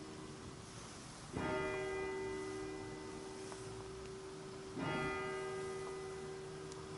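A single church bell tolled slowly as a memorial knell, struck twice about three and a half seconds apart, each stroke ringing on at the same pitch and slowly fading.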